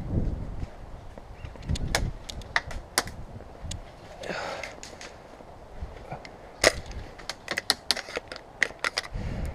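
Airsoft guns firing: sharp snapping shots, scattered singly at first and then a quick run of about a dozen in under two seconds near the end, with a low rumble of wind or handling on the microphone.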